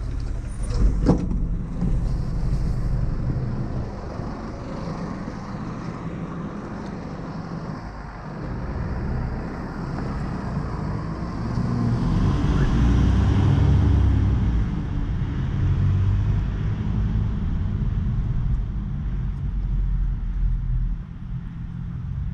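Ataman A09304 midibus's diesel engine rumbling steadily, with a few sharp clicks about a second in. The rumble grows louder about halfway through as the bus pulls away.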